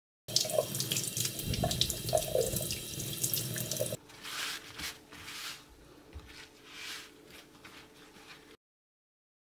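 Tap water running into a stainless steel kitchen sink as a horse mackerel is rinsed under it. From about four seconds in, it gives way to quieter, separate swishes of paper towel rubbing over the wet fish as it is wiped dry. All sound stops suddenly near the end.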